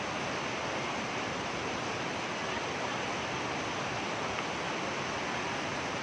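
Fast-flowing stream water below a waterfall, rushing steadily as an even hiss with no breaks.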